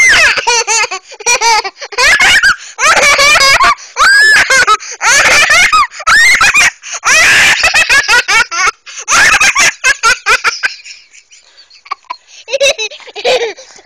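A young child giggling and laughing hard in quick, high-pitched bursts, dying down to a few quieter giggles about eleven seconds in.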